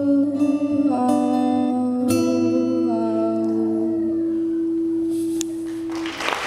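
Acoustic guitar and a woman's voice closing a song: the last chords are strummed and ring out under a long, wordless held note, which stops about six seconds in. A short burst of noise follows near the end.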